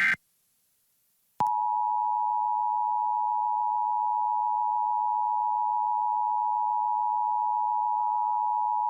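Emergency Alert System attention signal: the steady two-tone alarm of 853 and 960 Hz played together, starting about a second and a half in. It opens the alert, here a Required Monthly Test. Just before it, the screeching digital SAME header burst cuts off right at the start.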